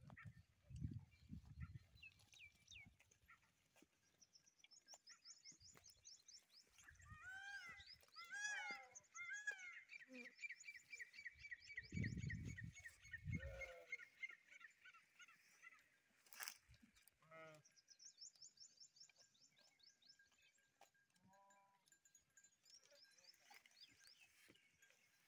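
Sheep bleating faintly a few times, with high chirping trills in the background and a low rumble about twelve seconds in.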